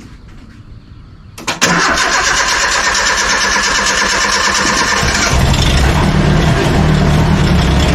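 Farm truck engine cranked by its starter for about three and a half seconds, then catching and running steadily.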